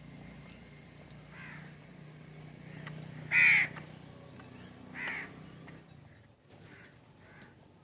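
Bird calls: one loud call about three and a half seconds in, a weaker one about a second and a half later, and several fainter calls around them.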